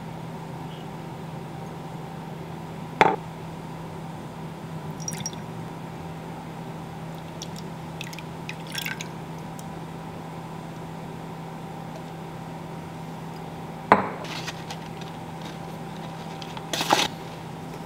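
Sauce ingredients spooned and poured into a ceramic bowl with a wooden spoon: a few sharp knocks of the spoon and bottles against the bowl and countertop, the loudest about three seconds in and again near fourteen seconds, with small clinks and soft pouring between them, over a steady low hum.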